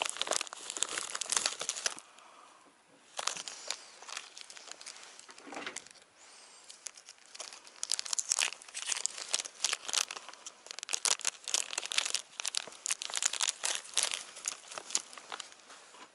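Plastic soft-lure packaging crinkling and rustling as it is handled, in irregular runs of crackles with short pauses about two seconds and six seconds in.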